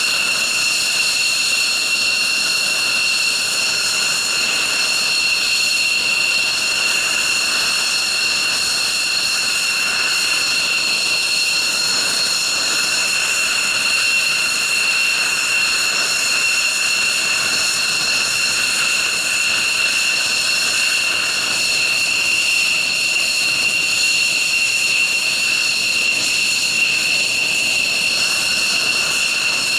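F-16 fighter's turbofan engine running at ground idle, a steady high-pitched jet whine with several held tones over a rushing hiss, unchanged throughout.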